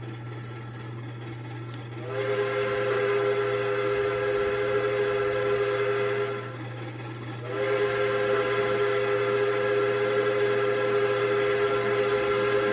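Southern Railway 4501 steam locomotive's whistle blowing two long blasts of a chord with at least two notes, the first starting about two seconds in and lasting about four seconds, the second following after a short break and still sounding at the end.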